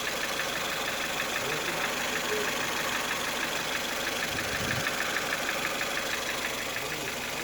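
2008 Ford Fiesta 1.4 four-cylinder petrol engine idling with a distinct, rapid, even knock, a fault noise present at idle. A brief low thud sounds about four and a half seconds in.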